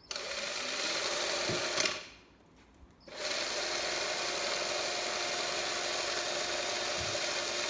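Electric drill running under light load, spinning a PET bottle on a rod, with a steady motor whine. It stops about two seconds in, starts again about a second later and then runs steadily.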